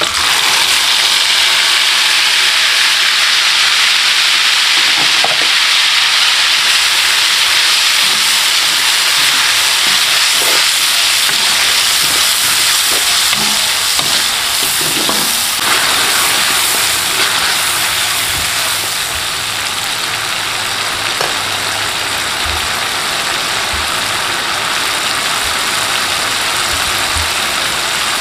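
Ground chili paste frying in hot oil: a steady, loud sizzle that eases slightly about two-thirds of the way through, with a few faint knocks of stirring.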